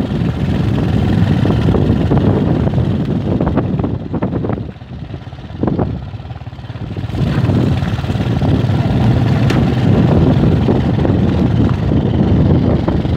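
Motorcycle engine running on a dirt mountain track, easing off for a couple of seconds about four and a half seconds in, then pulling again.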